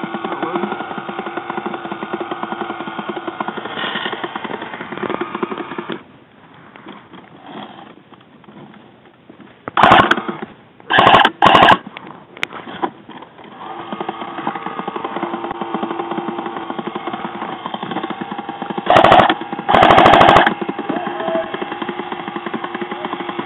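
Airsoft gun firing several short full-auto bursts of rapid shots, loud and close, in two clusters about ten and nineteen seconds in, over a steady hum.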